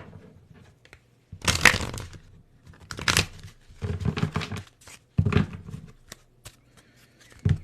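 A deck of tarot cards being shuffled by hand in four short bursts of rustling and flapping.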